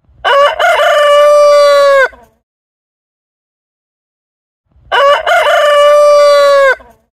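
A rooster crowing twice, about four and a half seconds apart. Each crow lasts about two seconds: a few broken notes, then a long held note that cuts off sharply.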